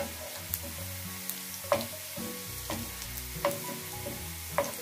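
Chopped onion and cumin seeds sizzling in hot oil in a non-stick frying pan, stirred with a wooden spatula that knocks and scrapes against the pan several times.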